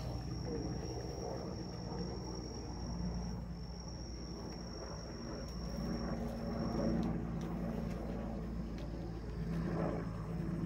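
Steady low outdoor rumble with a thin, high, steady whine above it that fades out about seven seconds in.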